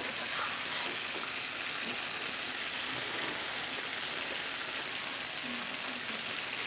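Dakgalbi (spicy stir-fried chicken) sizzling in a large shallow pan, a steady frying hiss.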